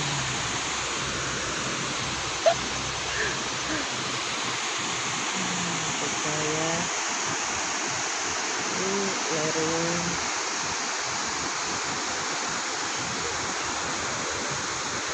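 Steady rush of a waterfall and a swollen, fast-flowing river. There is a single sharp knock about two seconds in, and faint distant voices around the middle.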